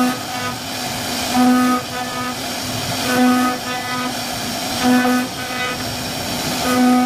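CNC router spindle carving wood: a steady-pitched whine over a constant cutting noise, swelling in a regular rhythm about once every second and a half or so.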